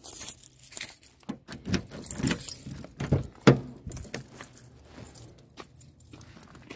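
Keys jangling with a run of irregular clicks and knocks as a car door is opened and someone climbs into the driver's seat; the sharpest knock comes about three and a half seconds in.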